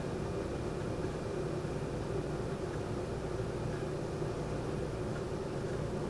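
Air conditioner's outdoor unit running, giving a steady low mechanical hum with a held droning tone.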